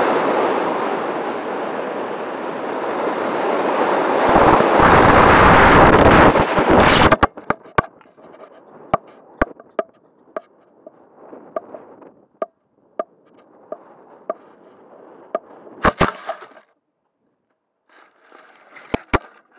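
Rushing air noise on a model rocket's onboard camera in flight, cutting off suddenly about seven seconds in. Scattered clicks and knocks follow, with a louder double knock later on and a few handling knocks near the end as the landed rocket is picked up.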